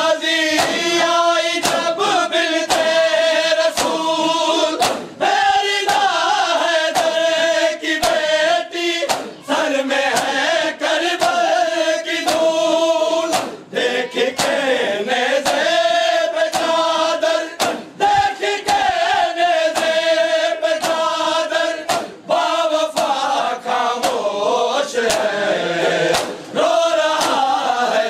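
A crowd of men chanting a Shia noha lament in unison, with sharp slaps of hands on bare chests (matam) about once a second.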